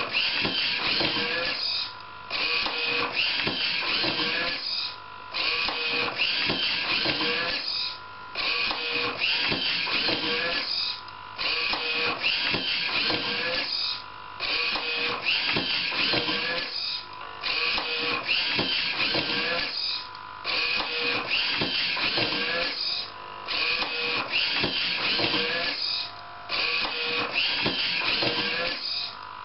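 DIY automatic book scanner running its page-turning cycle: mechanical whirring with a few whining tones, broken by a short pause about every three seconds, one cycle per page turn.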